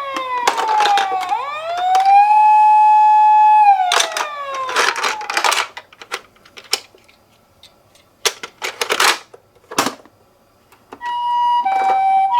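Toy ambulance minicar's electronic siren: a steady tone slides down in pitch and back up, then slides down again and stops, with clicking and clatter. After a few seconds of near quiet broken by single clicks, the two-tone hi-lo Japanese ambulance siren starts near the end.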